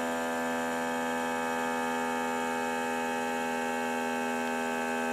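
Chef's Elite vacuum marinator's pump running with a steady hum, drawing the air out of the marinating canister.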